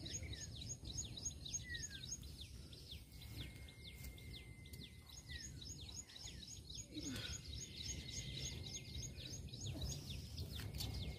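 Birds calling in fast trains of short falling chirps, several a second, with a thin steady whistle-like tone held for a few seconds at a time, over a low rumble of wind noise.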